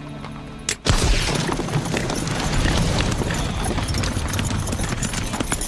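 A sharp crack, like flash powder going off, under a second in, followed by a loud, dense rumble and clatter of galloping horses' hooves.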